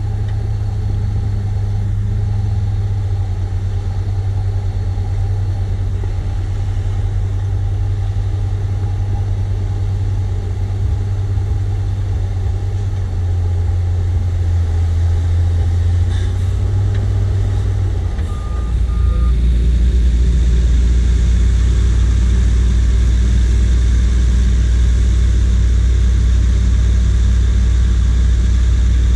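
JCB 436ZX wheel loader's Perkins 1006.6T turbo-diesel engine running under load as it pushes earth. About two-thirds of the way in come two short beeps, and then a louder, deeper diesel engine runs steadily: a dump truck raising its bed to tip a load of earth.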